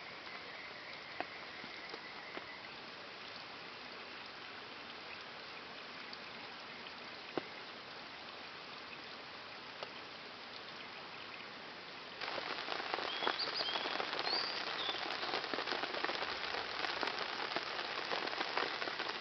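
Rain falling steadily, an even hiss with scattered drops ticking on surfaces. About twelve seconds in the rain becomes louder and denser, and a few faint high chirps sound over it.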